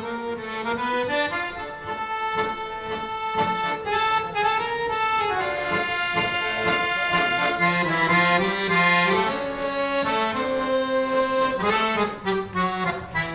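Instrumental intro of a live rock song: a solo reed-like melody instrument playing held notes over sustained chords, with no drums or bass.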